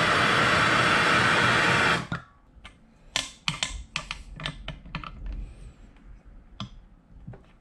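Handheld MAPP gas torch hissing steadily as it heats a seized stainless mount bolt, cut off suddenly about two seconds in. It is followed by a run of irregular metal clicks and clinks from a socket extension and ratchet being fitted to the bolt and worked on it.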